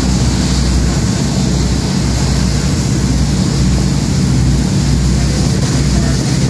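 Passenger ferry under way: its engines drone steadily, with a constant rush of wind and water over it.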